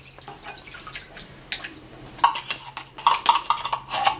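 Hot water trickling onto tomato paste in a ceramic bowl, then a spoon stirring and clinking against the bowl in quick, irregular taps that ring briefly, busiest in the second half.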